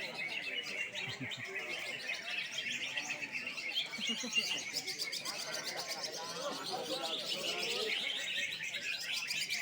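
Several caged green leafbirds (cucak ijo) singing at once, a dense, unbroken chorus of quick chirps and trills from competing birds.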